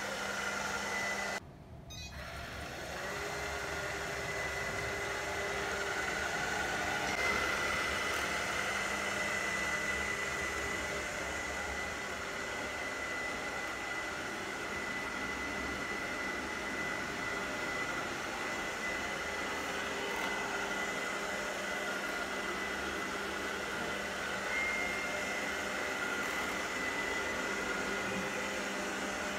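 ILIFE V5s Pro robot vacuum cleaner running in its dry suction mode: a steady whirr of the suction fan and brush motors with a thin high whine. The sound cuts out briefly near the start and then picks up again.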